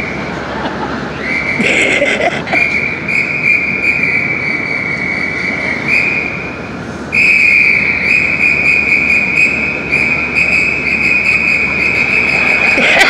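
A whistle blown by a stage clown, held in long, steady, high notes with short breaks between them, the pitch stepping slightly up and down.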